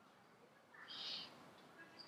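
A faint, short, high-pitched bird call about a second in, lasting roughly half a second.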